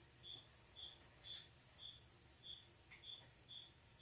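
Faint chorus of crickets at night: a steady high-pitched insect trill, with one cricket chirping about twice a second over it. A single light click about a second in.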